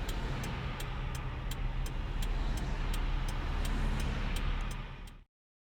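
Inside a car driving in heavy rain: steady hiss of rain and road over a low engine rumble, with sharp ticks of drops striking the car about three times a second. The sound cuts off suddenly about five seconds in.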